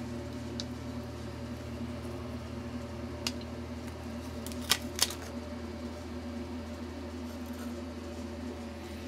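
A steady low electrical hum with a few short sharp clicks as the engraved glass mirror is handled, two of them close together about five seconds in.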